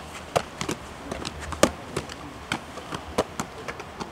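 Rugby balls slapping into hands as several pairs of players pass and catch: a run of irregular sharp smacks, the loudest about a second and a half in.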